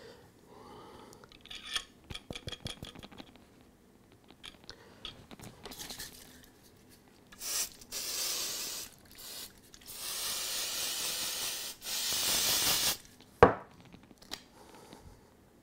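Aerosol can of spray adhesive hissing in several bursts in the second half, with light clicks and handling noises in the first few seconds and a single knock near the end.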